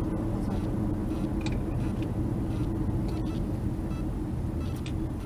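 Steady low rumble of a car heard from inside the cabin, engine and road noise, with a few faint clicks.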